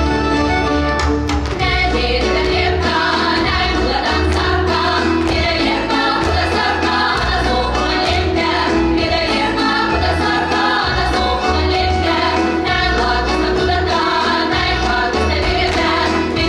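Folk dance music: a group of voices singing over instrumental accompaniment with a steady pulsing bass beat, the singing coming in about a second and a half in.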